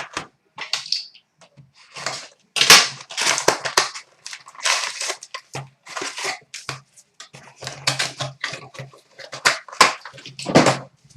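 A hockey card box and its wrapping being torn open by hand: irregular bursts of ripping and crinkling cardboard and plastic.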